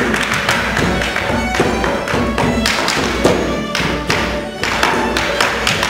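A fiddle tune played live, with a step dancer's shoes tapping and stamping rhythms on the stage over it.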